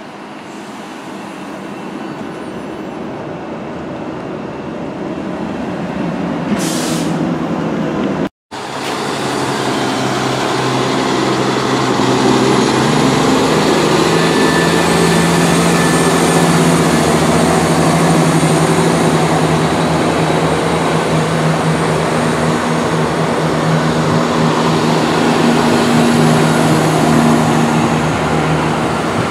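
A Southern Class 171 Turbostar diesel multiple unit moving slowly past at close range, its underfloor diesel engines droning with steady low tones, loudest in the middle. Before it, a high-speed electric train at a platform grows steadily louder as it pulls away, and the sound breaks off abruptly about eight seconds in.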